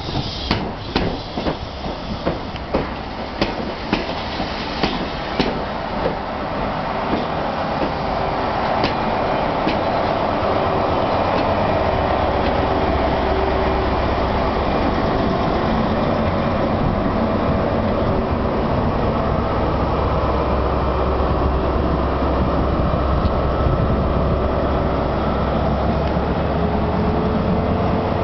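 A train's wheels clicking over rail joints for the first few seconds, giving way to the steady drone of an HST's Class 43 diesel power car with a low hum. Its tone rises slightly near the end.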